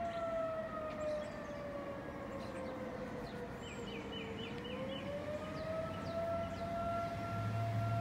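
Outdoor civil-defense warning siren sounding a steady tone during a test; its pitch sags about four seconds in and climbs back up. Short chirps in quick runs sound over it.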